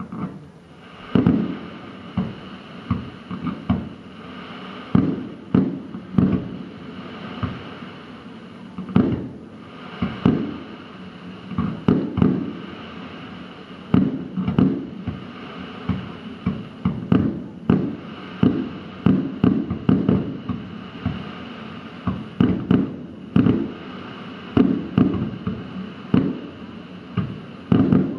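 Aerial fireworks shells bursting in a long irregular series of loud bangs, often several in quick succession, over a continuous hiss.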